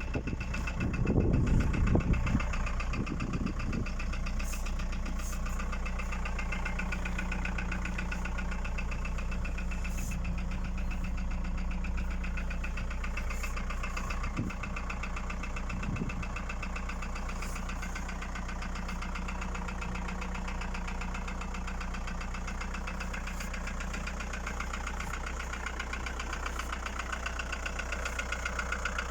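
Volkswagen Passat B4's 1.9 TD AAZ four-cylinder turbodiesel running steadily at idle with a rapid, even knocking, which the owner puts down to knocking pistons. It is louder for a moment about a second in.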